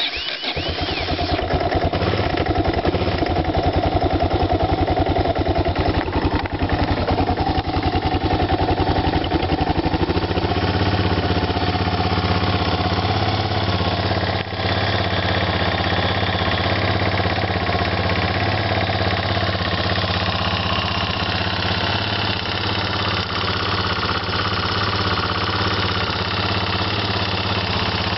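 Yamaha TT600's single-cylinder four-stroke engine catching and idling. It runs faster and rougher for about the first ten seconds, then settles to a steadier idle, with a brief dip about halfway through. The owner considers the sound bad.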